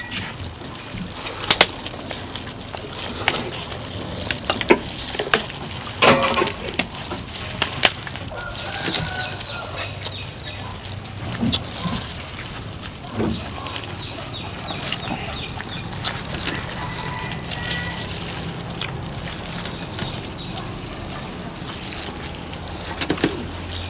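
Chickens clucking, over scattered sharp clicks and crunches of people eating roast duck.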